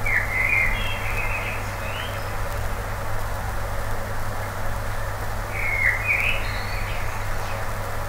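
A songbird singing two short warbled phrases with quick pitch glides, one at the start and another about five and a half seconds in, over steady background noise with a low hum.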